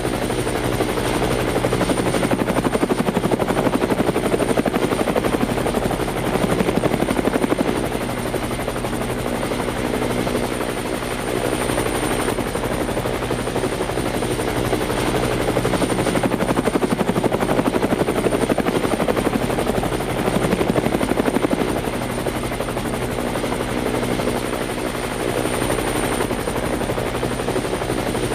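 Helicopter running continuously, its rotor blades making a fast, even chopping beat over a steady engine hum and a thin high whine. The loudness swells and eases slowly every few seconds.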